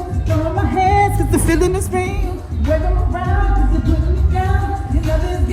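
Live R&B band playing, with heavy bass and drums, under a singer's sliding, wordless vocal runs.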